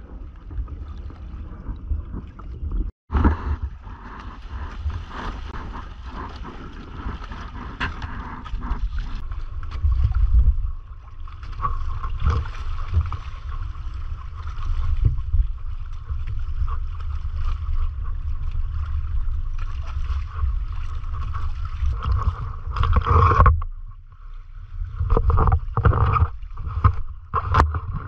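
Wind buffeting the microphone and water rushing and splashing along the hull of a Hobie sailing kayak under sail, a steady noisy rumble. The sound cuts out for a moment about three seconds in.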